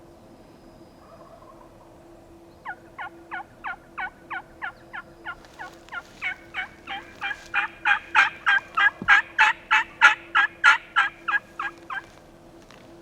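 A long series of turkey yelps, about three notes a second, starting about three seconds in and growing steadily louder before stopping abruptly near the end.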